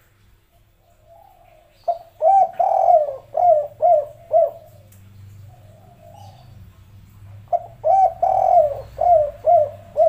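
Spotted dove cooing: two song phrases, one about two seconds in and one near the end. Each is a short note, a longer drawn-out coo, then three short coos, the three-note 'kuk 3' ending.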